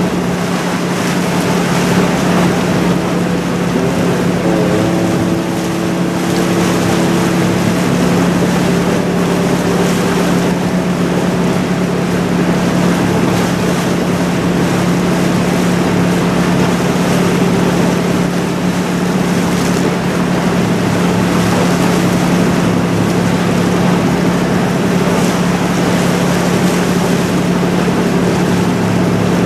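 Sightseeing boat's engine running steadily under way, a constant hum over the rush of water and wind.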